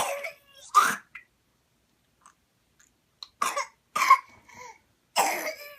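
Harsh coughing from whooping cough (pertussis), in short separate bursts: two near the start, two more around three and a half to four seconds in, then a longer strained cough near the end.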